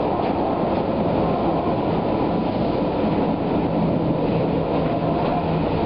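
Light rail car running along the track, heard from inside the car: a steady rumble of wheels on rail, with a steady low hum and a few faint clicks.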